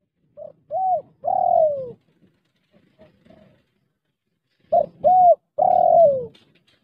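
Spotted dove cooing its three-note phrase twice: a short note, an arched note, then a long note that falls in pitch at the end.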